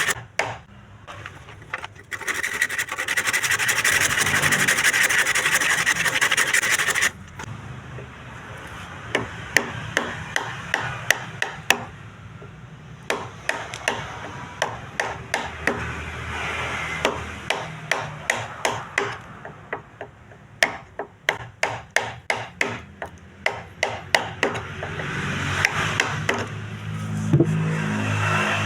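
Woodworking sounds: a loud steady tool noise for about five seconds that cuts off suddenly, then a long run of sharp knocks and taps on wood, at times about two a second, with rubbing and scraping between them.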